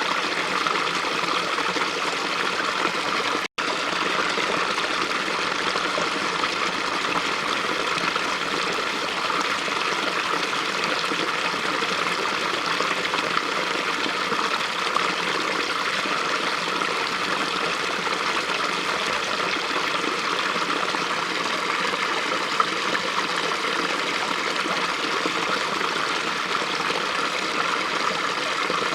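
Small brook flowing steadily, an even rushing and trickling of water over stones, with a split-second dropout about three and a half seconds in.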